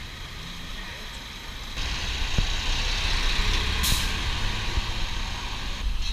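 City street traffic with a low steady rumble. About two seconds in, a loud hiss of air starts and lasts about four seconds, with a sharper burst in the middle, then stops.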